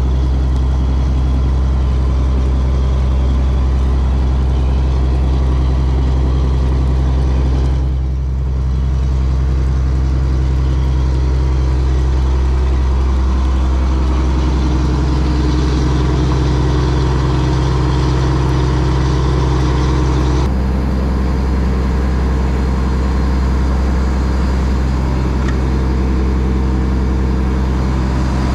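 Fishing trawler's engine running steadily, a loud low drone with a hum of overtones, shifting abruptly in tone twice.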